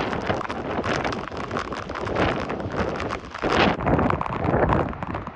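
Tropical-storm wind gusting hard across the microphone, a rough, buffeting rush that swells in a strong gust a little past halfway.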